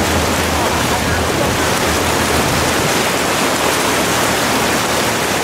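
Steady rushing of floodwater churned up by a vehicle driving through a flooded street.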